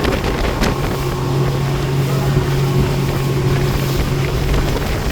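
Speedboat engine running at a steady pitch while under way, with wind buffeting the microphone.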